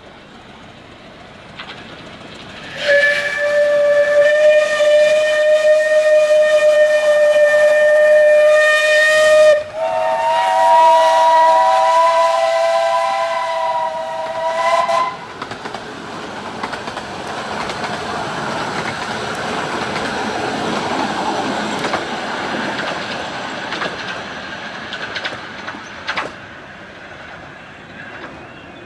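Steam locomotive whistles on a 15-inch gauge steam train: one long whistle on a single note lasting about six seconds, then a second whistle, chord-like with several notes together, for about five seconds. After that the train runs past with a steady rumble that swells and fades.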